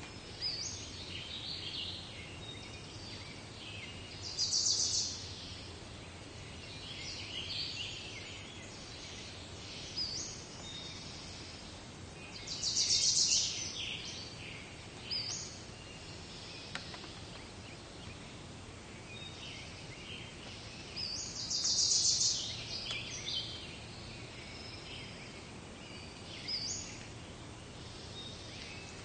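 Outdoor ambience of small birds chirping and twittering over a steady low background noise, with a louder burst of calls about every nine seconds.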